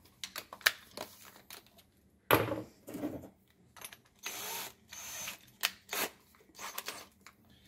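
A cordless drill being fitted with a Forstner bit: handling knocks and clicks from the chuck being tightened, a louder clatter about two seconds in, and two brief half-second runs of the drill motor about four and five seconds in.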